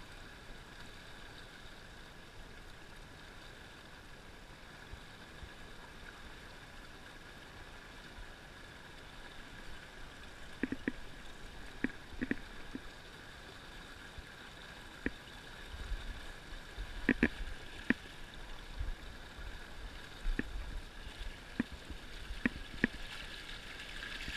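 Steady rush of fast river current around a small pontoon boat, with scattered sharp clicks and knocks from about halfway through.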